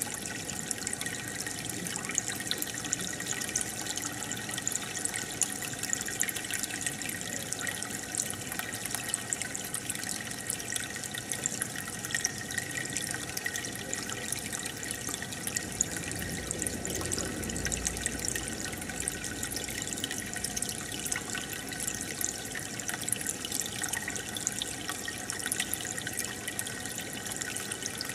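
Aquarium water bubbling and trickling steadily, with many small splashes and pops.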